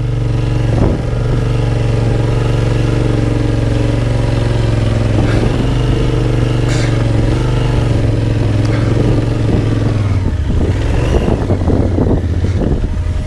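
Adventure motorcycle engine running at a steady speed; about ten seconds in its pitch dips and then wavers as the throttle changes.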